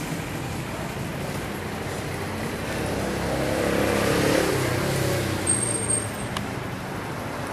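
Street traffic: a motor vehicle running close by, swelling louder about four seconds in and then fading as it passes.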